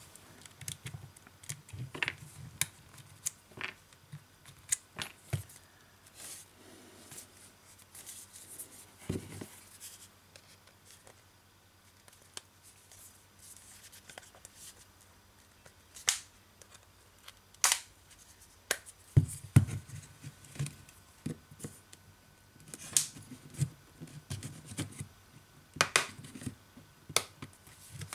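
A thin metal tool clicking and scratching against the plastic edge of a smartphone as it is worked open by hand: scattered short clicks and scrapes, sparse in the middle and coming thicker in the last third.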